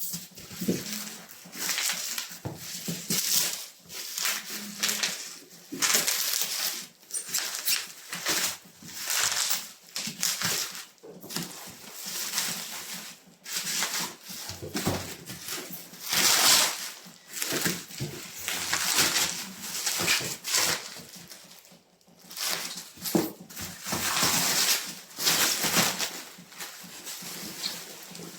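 Packaging being handled and torn open, rustling and crinkling in irregular bursts.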